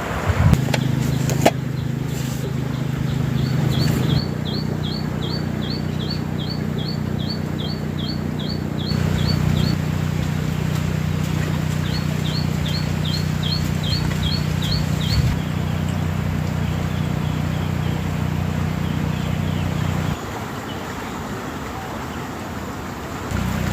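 A bird calling a rapid series of short repeated notes, about three a second, in two bouts, over the steady hum of an engine running.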